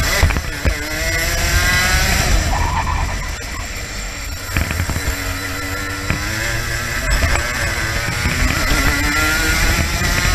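Racing kart engine heard onboard, its pitch climbing as the kart accelerates out of the corners and dropping away briefly about three to four seconds in as it slows, then rising again down the straight.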